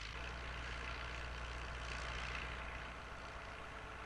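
Four-wheel-drive County tractor's engine running steadily, a low drone with no sharp events, easing slightly near the end.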